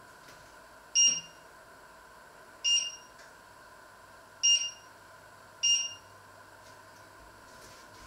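Glass-top electric hob's touch controls beeping four times as they are pressed: short high beeps, each about a third of a second long.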